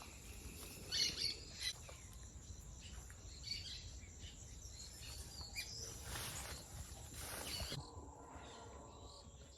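Scattered short bird chirps over a faint, steady outdoor background.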